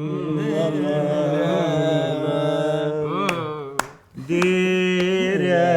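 A person's voice making a long droning hum that imitates a sound effect. The pitch wavers, sweeps up a little after three seconds, breaks off briefly about four seconds in, then holds a steady tone.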